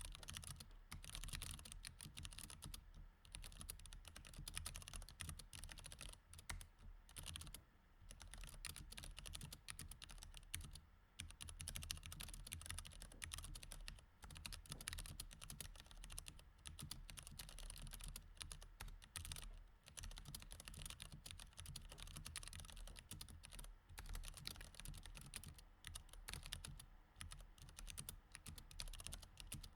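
Mechanical keyboard with Cherry MX Red switches being typed on continuously: a fast, steady stream of keystroke clicks, broken by brief pauses now and then.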